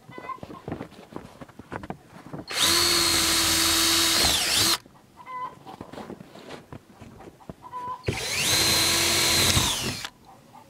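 Cordless drill running twice, each burst about two seconds at a steady speed and then winding down as the trigger is let go.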